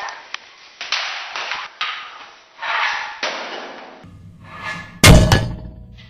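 Hockey puck striking a microwave oven with a loud metallic clang and ringing after it, about five seconds in. A few shorter rushing, swishing noises come before it.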